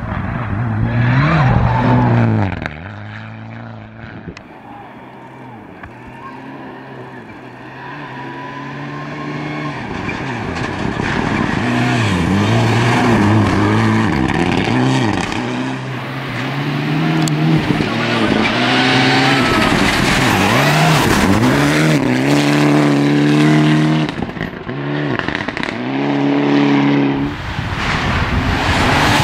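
Mitsubishi Lancer rally car's engine revving hard on a snowy stage, its pitch climbing and dropping again and again as it runs through the gears. It is loud as the car goes by near the start, quieter for a few seconds, then builds again as the car approaches and passes.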